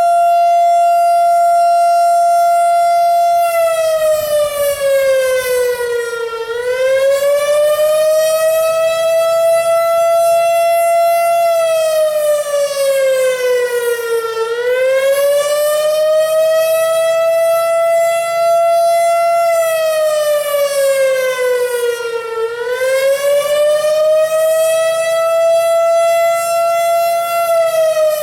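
Federal Signal Thunderbolt 1000 "Jail Bar" outdoor warning siren, loud and held stationary with its rotator unused. It holds one steady tone for about three seconds, the end of the Alert signal. It then changes to the Attack signal, its pitch falling and rising back in slow waves about every eight seconds.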